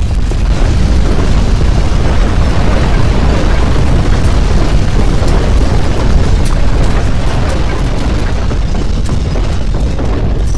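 Loud, steady low rumble with scattered clicks and clatter: strong earthquake ground shaking as picked up by a hand-held phone's microphone.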